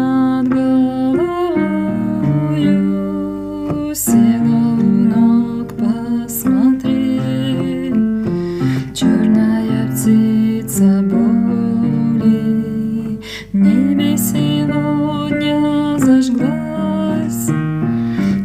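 Song accompaniment music led by guitar, with sustained backing notes and a steady beat.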